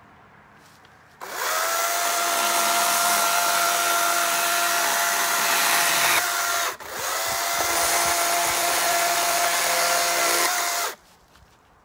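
Yardworks 40V cordless electric chainsaw with a dull chain cutting a dead branch: the motor whines steadily with chain-and-wood noise in two bursts, about five seconds then about four, each spinning up at the start and cutting off suddenly.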